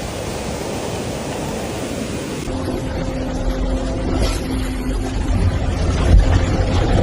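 Rushing water noise, then an abrupt change about two and a half seconds in to a steady low hum over a heavy rumble.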